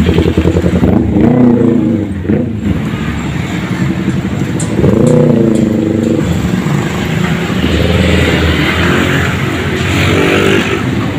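Road traffic: motor-vehicle engines going by, their pitch rising and falling several times as they pass.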